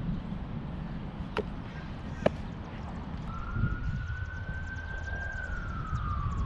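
A siren wailing: one tone comes in about halfway, rises a little, holds, then slowly falls. Low wind rumble on the microphone runs underneath, and two sharp clicks come between one and two and a half seconds in.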